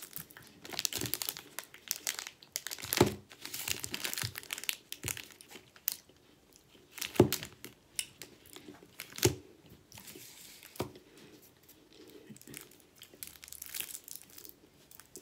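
Plastic wrapper of a Peppermint Crisp chocolate bar being crinkled and torn open by hand: irregular crackling with several sharp snaps, the loudest about three, seven and nine seconds in.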